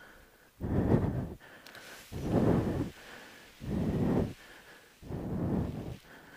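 Heavy, regular breathing close to a head-mounted microphone, one breath about every second and a half.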